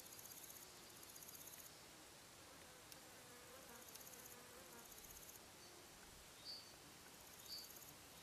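Faint, very high-pitched buzzing insect trills, made of rapid pulses in bursts of about a second, repeating every second or two. Two short high chirps come near the end and are the loudest sounds.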